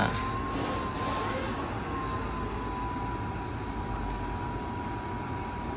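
Steady whirring hiss of bench test equipment, with a thin steady whine held at one pitch that wavers briefly about a second and a half in. A short click at the very start.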